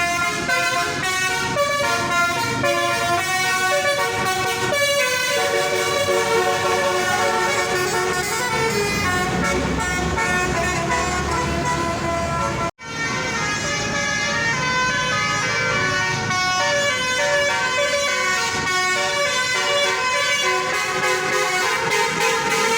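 Basuri multi-tone bus horn playing a melody, its notes stepping from one pitch to the next. It cuts off abruptly for an instant about 13 seconds in, then plays on.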